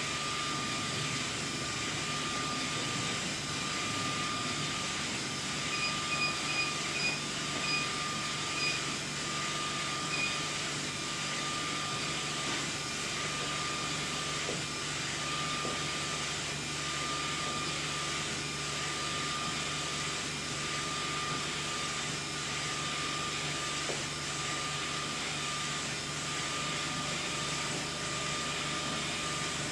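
SK UV6145 UV inkjet printer running: a steady machine hum with a constant high whine, and a short run of brief high chirps about six to ten seconds in.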